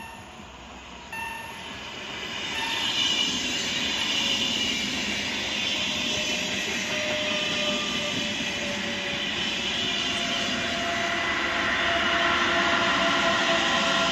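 Double-deck electric passenger train passing close by, its rush of wheels and air building over the first few seconds and staying loud, with a faint whine that rises slightly in pitch. In the first few seconds a bell-like ding rings about every second and a half.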